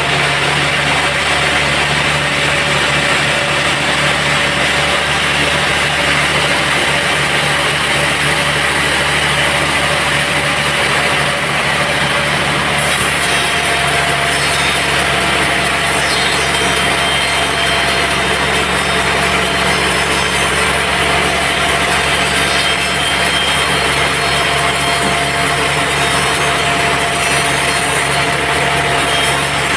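Sawmill band saw running and cutting through a teak log, a steady loud machine noise with held tones under a hiss. About thirteen seconds in, a higher hiss joins it.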